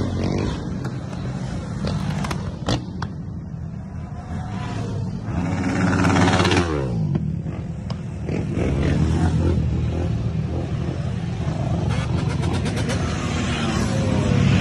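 Dirt bike and ATV engines revving as they ride past along the street. About six seconds in, one passing engine's pitch drops sharply as it goes by, and the engine noise swells again near the end.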